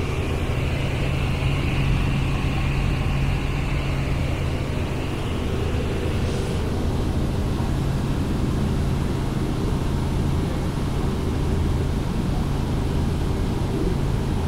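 Helicopter engine and rotor noise heard from inside the cabin in flight: a loud, steady drone.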